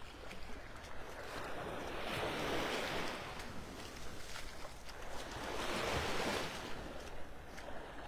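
Small waves washing up on a sandy beach, with two swells of surf about two and a half and six seconds in. A low rumble of breeze on the microphone runs underneath.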